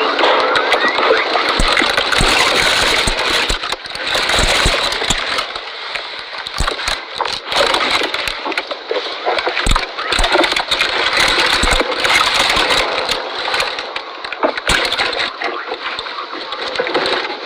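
A camel chewing cactus: a dense, irregular noise with many small clicks.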